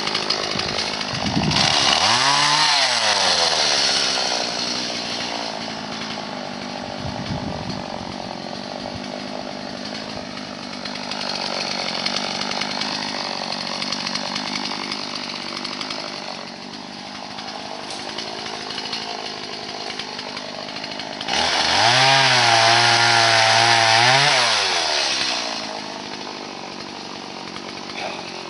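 Two-stroke Stihl chainsaw running, revved to full throttle twice: briefly about two seconds in, then held for about three seconds before dropping back toward idle.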